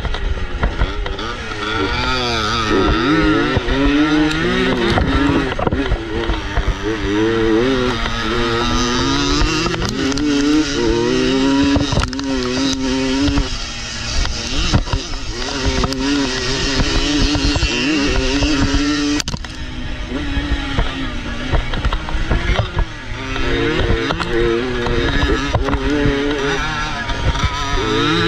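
1973 Husqvarna 125 WR's two-stroke single-cylinder engine being raced hard on a dirt motocross track, its pitch climbing and dropping again and again with throttle and gear changes.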